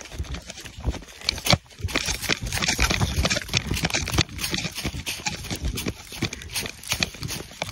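A person running through dry fallen leaves: quick, uneven crunching footsteps with rustling of leaf litter.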